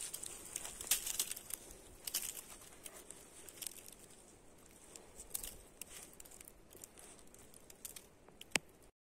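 Dry twigs and fir needles crackling and rustling as a freshly picked porcino is pulled free and handled on the forest floor: denser crackles in the first second or so, then sparse faint ones. A brief falling tone near the end.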